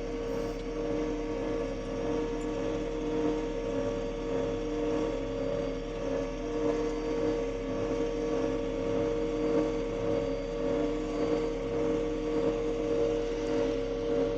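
Combine harvester running steadily: a constant machine drone with several held tones and no change in speed.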